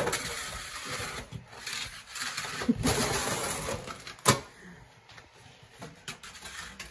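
Snow shovels scraping snow and ice off porch steps, with scattered clatters and a sharp knock about four seconds in.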